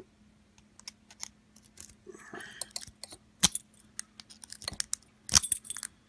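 Metal lock picks clicking and scraping in a brass pin-tumbler padlock's keyway as a diamond pick is zipped in and out under tension, trying to bounce the pins to the shear line. Scattered light clicks, a short scrape a little after two seconds, one sharp click about three and a half seconds in and a cluster of clicks near the end.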